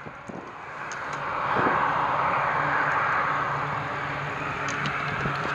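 Steady rushing noise with a low hum from aircraft or ground-support machinery running on an airfield flight line, swelling over the first couple of seconds and then holding steady.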